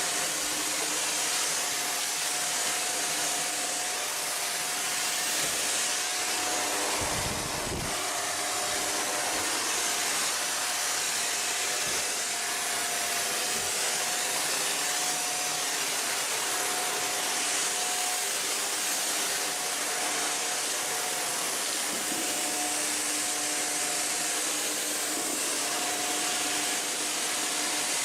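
Shark NZ850UKT upright vacuum cleaner running on its minimum suction setting while vacuuming: a steady rush of air with a constant motor whine. A low thump comes about seven seconds in.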